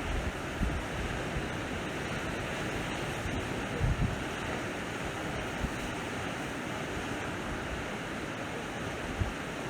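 Sea waves washing steadily onto the shore, with wind buffeting the microphone in brief low rumbles, the clearest about four seconds in.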